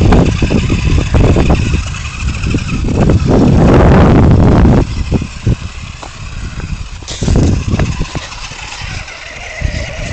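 Two small electric RC buggies, an FTX Vantage towing a Maverick Ion XB, whining as they drive over gravel, under heavy wind and handling noise on the phone microphone. A louder rushing stretch comes about four seconds in.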